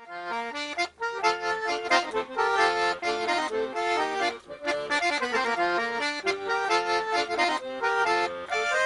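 Accordion playing a quick melodic instrumental introduction, notes changing in rapid succession over a light accompaniment.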